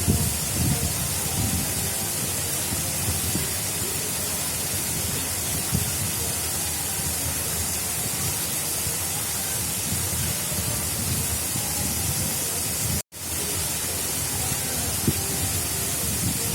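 Water rushing steadily along an artificial river channel, a continuous hiss with low churning underneath. The sound cuts out for an instant about thirteen seconds in, then resumes.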